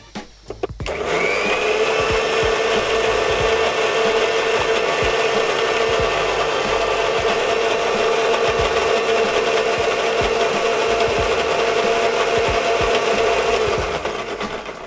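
Preethi Crown mixer grinder with a steel jar grinding onion and tomato. A few knocks as the jar is set on the base, then the motor starts about a second in with a rising whine, runs steadily, and winds down near the end.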